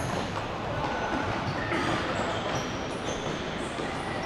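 Futsal players' shoes squeaking on a sports-hall court, short high squeaks now and then over the general echoing noise of play in the hall.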